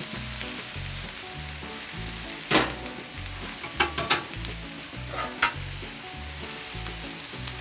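Seasoned chicken strips frying in oil on a Blue Rhino Razor flat-top gas griddle: a steady sizzling hiss. A few sharp clicks break through it, the loudest about two and a half seconds in and others near four and five and a half seconds.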